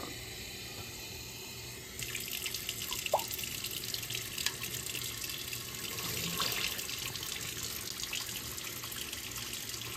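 Kitchen faucet running in a steady stream into a stainless steel sink full of dishes. The water sound turns brighter and a little louder about two seconds in.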